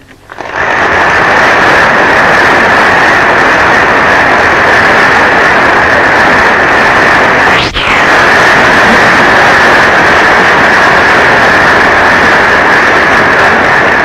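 Large audience of men applauding with dense, steady clapping, heard through an old film recording. There is a brief break a little past halfway.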